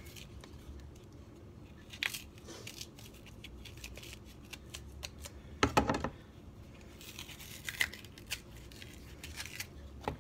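Green banana peel being scraped with a kitchen knife and then torn and stripped off by hand, with scattered scraping and tearing strokes. Just before six seconds in there is a sharp knock, the knife being set down on the plastic cutting board.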